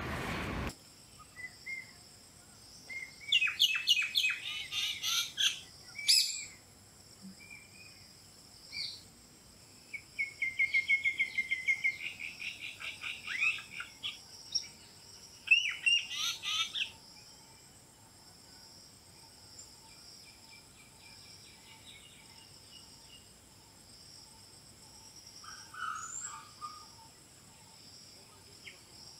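Birds chirping and calling in scattered bursts, with a fast trill near the middle, over a steady high-pitched insect drone.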